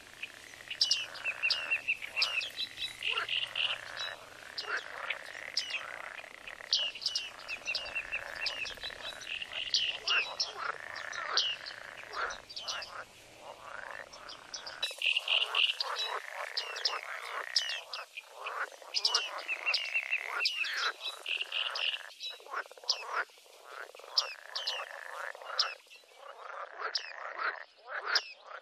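Bearded reedlings calling: many short, sharp 'ping' calls repeated in quick succession by several birds, over a steady background chorus.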